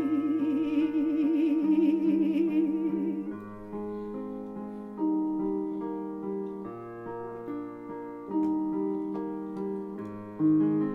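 Music: a sung note held with vibrato over keyboard chords, ending about three seconds in, followed by a slow keyboard interlude of sustained notes and chords.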